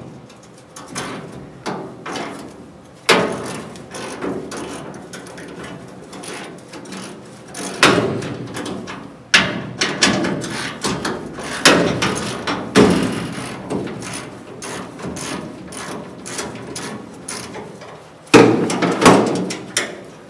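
Irregular metal clanks, knocks and rattles of the steel dash frame and brackets in a 1974 Ford F250 cab being worked loose, with sharper strikes every few seconds and a loud clank near the end.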